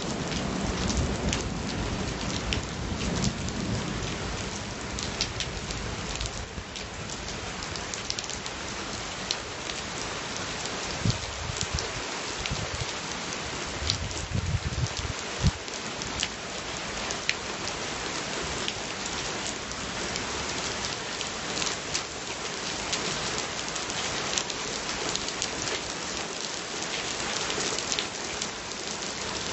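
Steady thunderstorm rain falling, with many sharp close drop hits on a surface. The low rumble of thunder fades over the first few seconds, and a short low rumble returns about halfway through.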